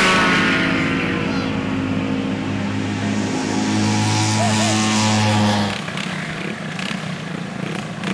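Drag-racing scooter engines at full throttle: right at the start the pitch drops steeply as a scooter passes close by, then the engines hold a steady high pitch as they speed away down the strip. A little over two-thirds of the way in the sound cuts to a quieter, rougher engine noise.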